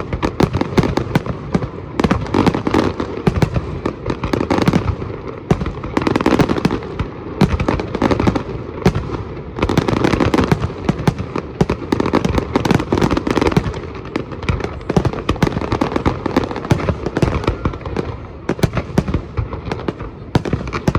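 Fireworks going off in a continuous barrage: many bangs and crackles every second, with no pause.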